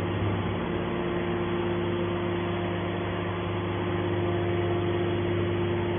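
Hydraulic can baler's electric motor and pump running with a steady, even hum.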